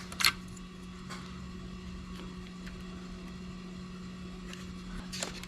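Small clicks and ticks of hands working at a vehicle's fuse box, pulling out the 20 amp fuse, with a sharper click just after the start and another near the end, over a steady low hum.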